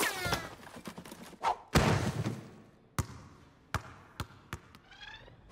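A basketball bouncing on a hardwood gym floor, the bounces coming quicker and quicker as it settles to rest.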